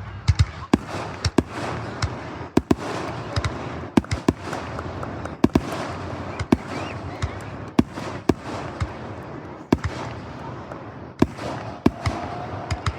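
Aerial fireworks display: shells bursting in a quick, irregular string of sharp bangs, at times several a second, over a continuous noisy wash.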